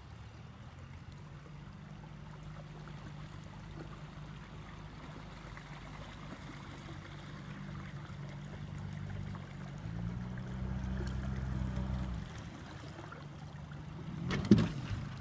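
Small cabin motorboat's engine running slowly as it comes in. About ten seconds in, the note rises and gets louder for about two seconds, then drops back to a low idle. A single sharp thump comes near the end.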